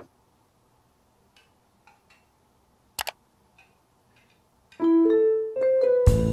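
A few faint taps on a laptop keyboard, then a short rising run of piano notes about five seconds in, with fuller music coming in just before the end.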